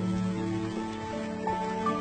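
Soft, slow instrumental background music with long held notes; a higher note comes in about one and a half seconds in.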